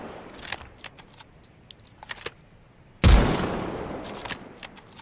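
Snider-Enfield breech-loading rifle fired once about three seconds in, a single sharp shot with a long echoing tail. Before and after it come short metallic clicks and rattles of the breech being worked.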